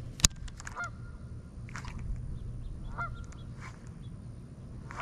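A goose honking over and over, short calls about once a second. A single sharp click just after the start is the loudest sound.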